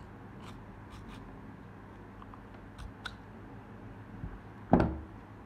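Light metallic clicks and scrapes as the magazine is worked out of the grip of a steel Beretta M1935 pistol, then one sharp knock on a wooden table near the end.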